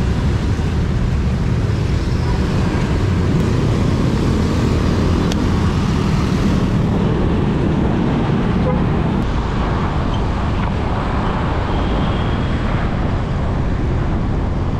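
Steady road-traffic noise: cars and motorcycles running close around a bicycle in slow city traffic, a low even rumble.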